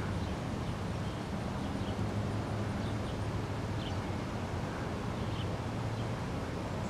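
Outdoor ambience: a steady low hum with a few faint, short high chirps scattered through.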